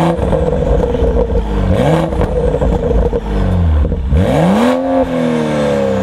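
Turbocharged 3.0-litre inline-six of a 2015 BMW 335i, breathing through a 4-inch downpipe and mufflers with their valves deleted, revving hard three times, the last and highest climb about four and a half seconds in, then the revs falling away slowly.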